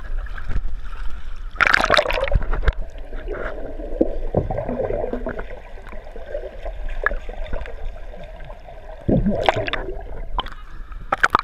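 Seawater sloshing and splashing against an action camera held at the surface, with muffled gurgling as it dips under the water. Louder splashes come about two seconds in and again near the end.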